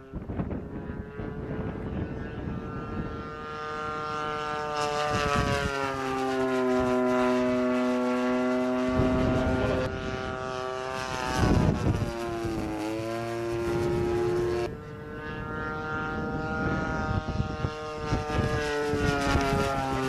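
Single-cylinder two-stroke petrol engine (DLE 30cc) of a radio-controlled Fw 190A model in flight, its pitch rising and falling as the plane manoeuvres, with a sharp dip about twelve seconds in. Gusts of wind buffet the microphone a few times.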